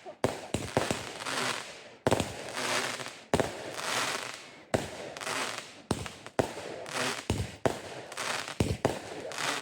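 Fireworks going off: a sharp bang about once a second, each trailing off into crackling and hiss.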